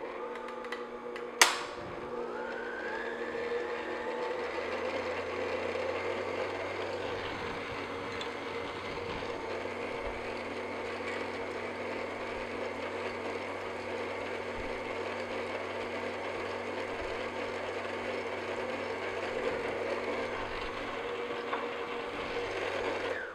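Electric stand mixer running on low speed, its beater turning through thick cake batter in a stainless steel bowl. A sharp click comes about a second and a half in, then the motor's whine rises as it comes up to speed and settles into a steady run.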